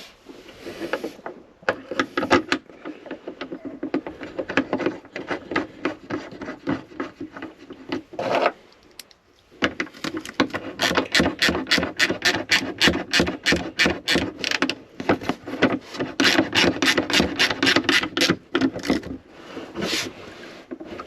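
Hand ratchet clicking in rapid runs of several clicks a second as it tightens a T40 Torx bolt, with a short pause about nine seconds in.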